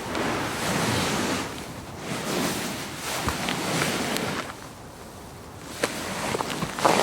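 A person shifting their weight on a couch: fabric upholstery rustling in two long swishes, followed by a few sharp clicks near the end.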